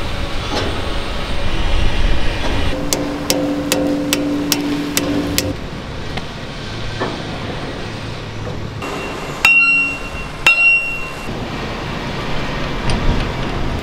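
Hammer striking steel parts of an excavator boom during reassembly. About six strikes come in a quick, even run a few seconds in, with a ringing note. Two loud ringing metal clangs follow about ten seconds in.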